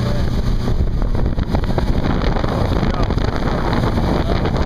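Wind buffeting the microphone aboard a moving boat, over the steady rushing noise of the boat and water.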